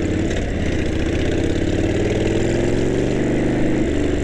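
Harley-Davidson V-twin engine running under the rider, heard from a helmet-mounted mic. Its pitch rises slowly as the bike picks up speed, and the sound shifts near the end.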